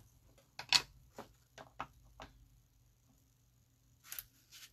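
Light clicks and taps of plastic Distress Oxide ink pad cases being handled, set down and opened on a craft mat, about six in the first two and a half seconds, then a short rustle near the end.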